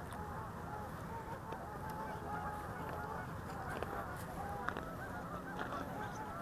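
A flock of geese honking faintly: many short, overlapping calls that go on throughout.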